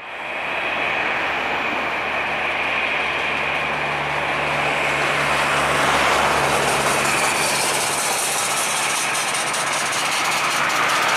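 Cessna 680A Citation Latitude business jet on final approach, its twin Pratt & Whitney Canada PW306D1 turbofans giving a steady high whine over a rushing jet noise. It grows a little louder about halfway through as the jet comes closer.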